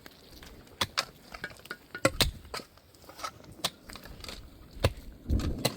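Raindrops striking tent fabric as irregular sharp taps, several a second. A short low rumble comes in near the end.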